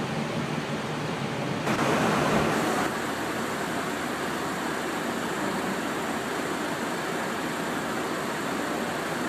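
Steady rushing airflow noise inside an airliner flying at cruise altitude, with a louder, brighter stretch of about a second near two seconds in.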